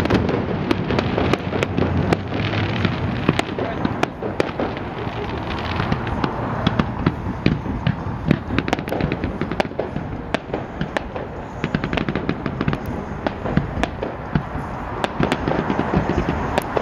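Fireworks display going off in rapid, irregular succession: a dense string of sharp bangs and crackles over a continuous noisy rumble.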